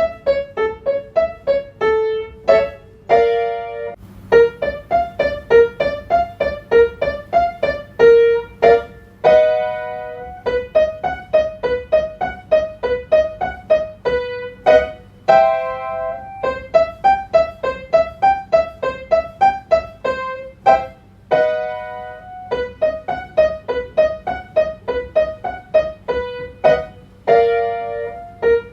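Piano playing a staccato vocal warm-up accompaniment: runs of short, detached notes, broken about every six seconds by a longer held chord.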